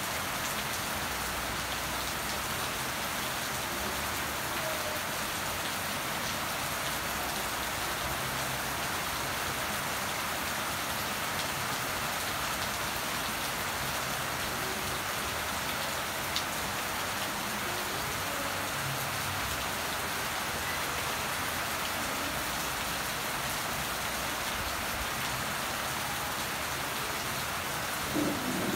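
Steady rain falling on leaves and potted plants, an even, unbroken patter, with one sharp tick about midway and a couple of brief louder drops near the end.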